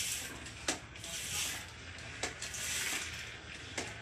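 Nerf water blaster spraying water in swelling hisses, with three sharp clicks from the blaster's mechanism about a second and a half apart.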